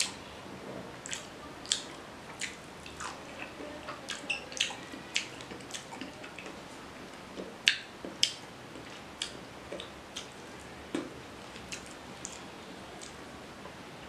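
Close-up eating sounds: irregular wet clicks and smacks of a mouth chewing rice and fish curry, with fingers squishing curry into rice. Two sharper smacks stand out a little past halfway.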